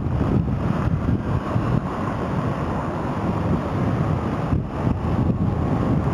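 Articulated tram running along street rails toward the microphone, heard as a steady low running noise mixed with wind buffeting the microphone.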